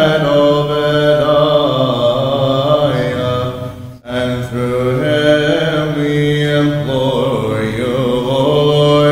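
Byzantine chant: voices singing a melody over a low held drone (ison). The singing breaks off briefly about four seconds in, then resumes.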